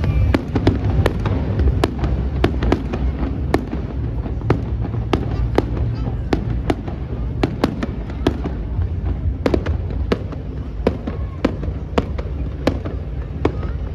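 Fireworks display bursting: a steady run of sharp cracks, about two a second, over a continuous low rumble.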